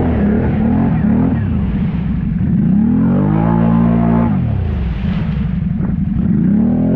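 ATV engine revving, its pitch climbing, holding, dropping back, and climbing again near the end as the throttle is worked.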